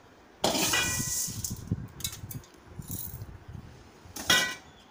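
Dry roasted rice grains rattling and clinking into a steel mixer-grinder jar. A sudden loud spell starts about half a second in, then uneven rattling, and a second short loud spell near the end.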